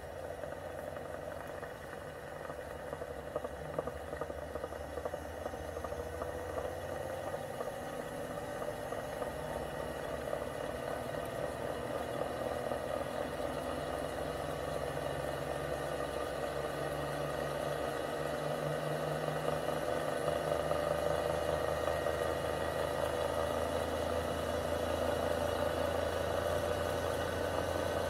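Homemade axial flux electric motor spinning its steel rotor plate on a steady run, slowly speeding up and growing louder, with a whir and some vibration. The rotor has been balanced with added weights but is still slightly out of balance.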